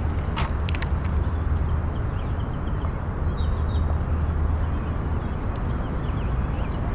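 Outdoor ambience: a steady low rumble, with a few sharp clicks from the spinning reel in the first second and faint small-bird chirps about three seconds in.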